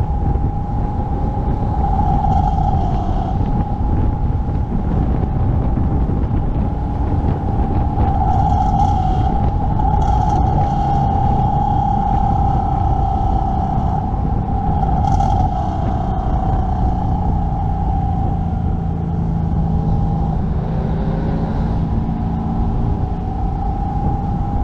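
Car driving at a steady pace: a constant low rumble of engine and road, with a steady whine held over it that wavers only slightly.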